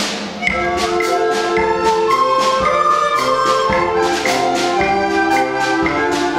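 Recorder ensemble playing a tune in several parts, with bassoons below and a steady percussion beat.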